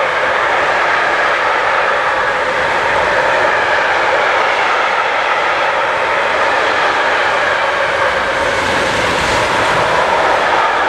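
Container freight train's wagons rolling past: a steady noise of steel wheels on rails, swelling briefly about nine seconds in.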